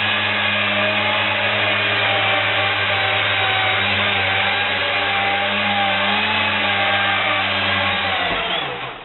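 Lift fans of a radio-controlled Ryan XV-5A Vertifan tricopter model running at hover power: a steady loud whir with whining tones that waver slightly as the throttle changes. About eight seconds in, the fans spin down and the sound falls away.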